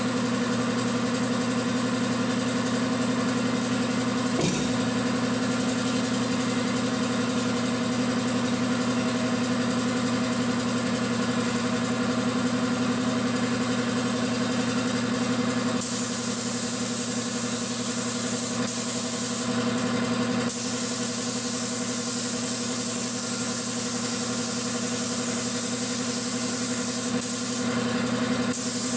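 Air compressor motor running with a steady hum. About halfway through, a spray gun's air starts hissing, stops briefly, then runs on until just before the end.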